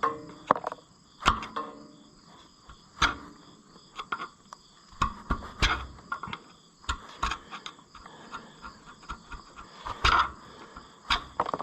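Irregular metallic clicks and knocks of hand tools working against metal parts, a dozen or more sharp hits spaced unevenly.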